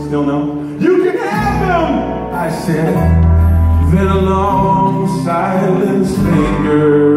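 Live acoustic band music: an upright double bass plays low sustained notes under an acoustic guitar, with a man singing.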